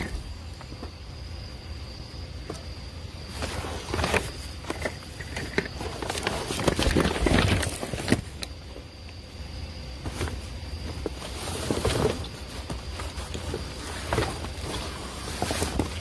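Rummaging in a dumpster: cardboard boxes and plastic bags rustling and plastic bottles being shifted, in irregular bursts with the loudest stretch around the middle. Under it runs a steady low hum and a faint high whine.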